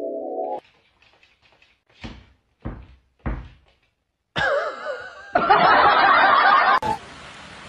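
A rising tone cuts off, then three dull thumps about half a second apart, then a loud burst of laughter. The laughter stops abruptly near the end, leaving a steady hiss.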